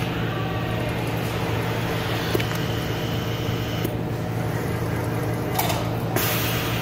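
Creative Manufacturing die-cut sheet feeder running with a steady machine hum, with two short hisses of air near the end from its pneumatic suction-cup pick heads.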